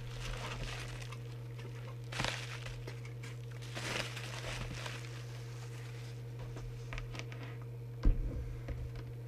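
Bubble wrap rustling and crinkling in short bursts as it is pulled off a radio, with a sharp knock near the end. A steady low hum runs underneath.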